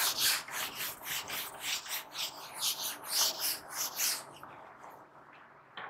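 Whiteboard eraser wiping a whiteboard in quick back-and-forth strokes, about three a second, a dry rubbing swish. The wiping stops a little past four seconds in, and a faint click follows near the end.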